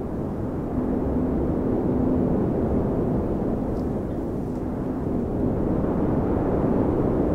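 Steady low rumble of wind during heavy snowfall, with a faint hum about one to two seconds in.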